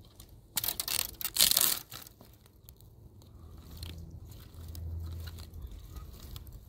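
Dry dead wood crackling and snapping as a dead shrub's stems are pulled and broken by hand. There is a dense burst of cracking about a second in, then quieter scattered crackles.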